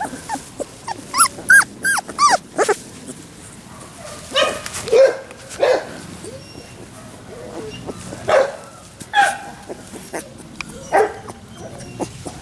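Labrador retriever puppies whimpering and yelping: a string of short, high-pitched cries that bend up and down, some louder yelps among them.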